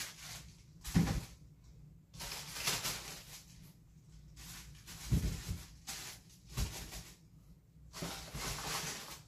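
Plastic-wrapped toilet paper rolls rustling as they are lifted out of a cardboard box and set on wire closet shelves, with a few soft thumps as rolls and the box are handled.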